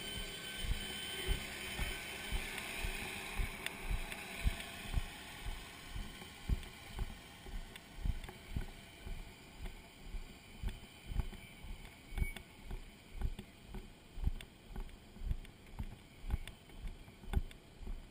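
Running footsteps of a firefighter, about two a second, each step jolting the body-worn camera into a dull thump. A hiss fades out over the first few seconds.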